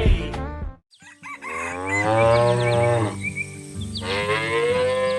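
Cow mooing: two long moos, one after the other, each lasting about two seconds, after a brief silence about a second in.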